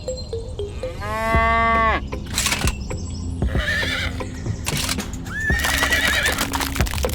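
A loud, drawn-out animal call about a second long, with scattered clicks and knocks around it. A shorter, higher wavering call comes about five and a half seconds in.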